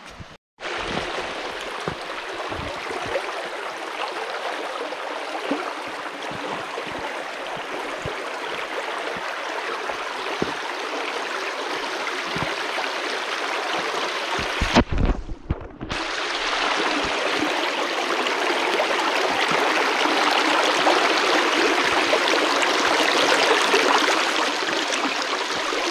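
Shallow, rocky creek running over stones: a steady rush of water over riffles. It cuts out for about a second midway, then comes back slightly louder.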